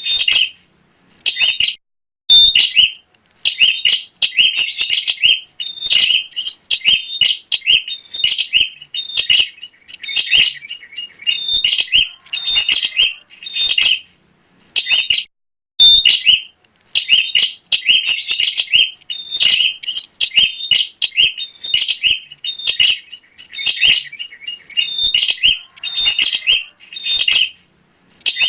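Prenjak (prinia) singing energetically: loud, high-pitched, rapid chirping phrases repeated in bursts with short pauses between them.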